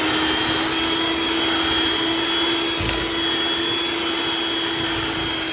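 Electric hand mixer running at a steady pitch, its beaters working an egg into creamed butter and sugar.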